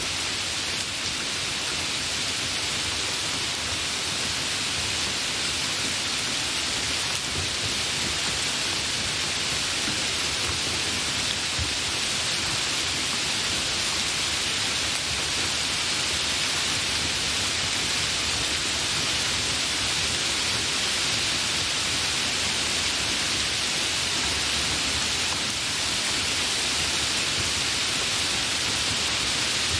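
Hard rain falling steadily: a dense, even hiss of downpour with no let-up.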